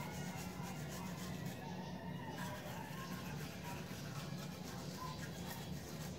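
Manual toothbrush scrubbing teeth in quick, steady strokes, over a constant low hum.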